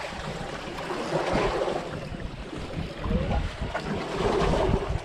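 Wind gusting across the microphone over the wash of sea water around a boat.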